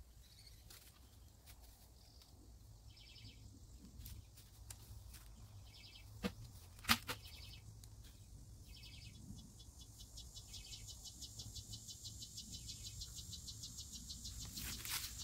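Insects trilling in rapid pulses: short pulsed calls repeat every couple of seconds, and a continuous high, fast-pulsing trill builds from about ten seconds in. Two sharp knocks about six and seven seconds in are the loudest sounds.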